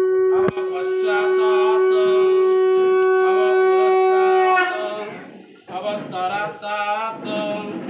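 Conch shell (shankha) blown in one long, steady, loud note with a brief break about half a second in, dying away after about four and a half seconds. Voices follow near the end.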